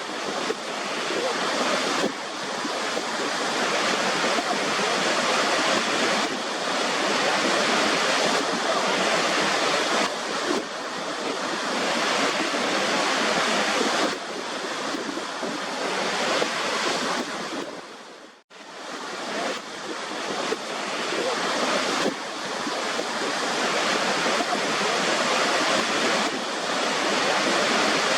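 Waterfall rushing in a steady, dense roar of falling water. About two-thirds of the way through it cuts out suddenly for an instant and fades back in, like a splice in a looped recording.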